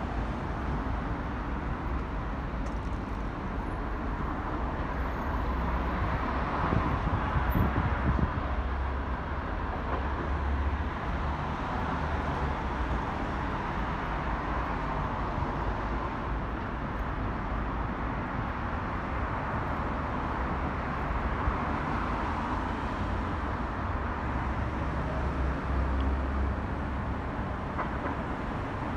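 Steady outdoor urban background noise: a hum of distant traffic with a low rumble, swelling a little about a quarter of the way in and again near the end.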